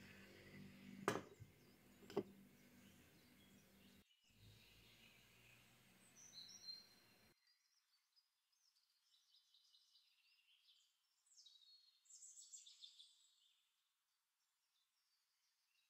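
Near silence: faint room tone with two sharp clicks, about a second in and again a second later, then faint high chirps like small birds in the later part.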